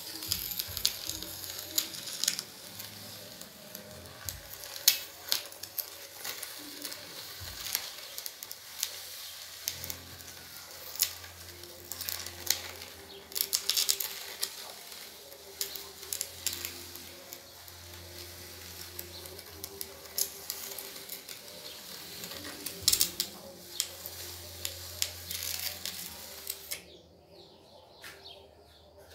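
Wooden template scraped around wet cement mortar on a planter mould: continuous gritty scraping with frequent sharp clicks and taps, which stops about two seconds before the end.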